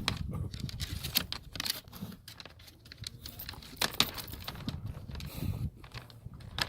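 Irregular clicks, taps and rustles of hands working stiff hide lacing through a drum hide. There are a few sharper clicks, one of them about four seconds in.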